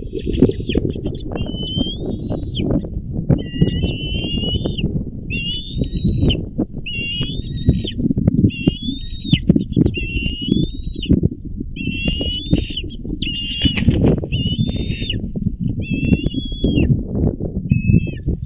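Bald eagles calling: a run of high, thin whining calls, each about half a second to a second long, roughly one a second, with a loud rough low rumbling noise underneath.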